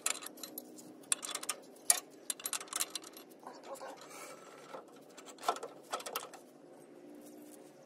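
Irregular light clicks and knocks of metal mounting hardware, carriage bolts and steel brackets for an air spring kit, being handled and fitted against a pickup's rear leaf spring.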